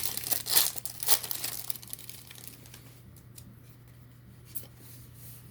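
Hockey trading-card pack wrapper being torn open and crinkled, densest in the first two seconds, then fainter rustling and handling of the cards.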